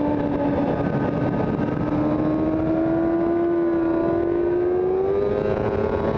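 Sport motorcycle engine heard from a camera mounted on the bike, running hard at speed, its pitch climbing steadily as it accelerates, under a heavy rush of wind noise.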